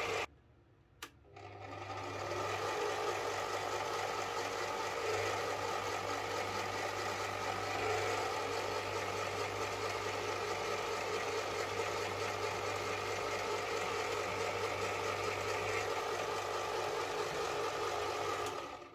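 Small metal lathe running. A click about a second in, then the motor comes up to speed over about a second and runs steadily with a hum before cutting off near the end.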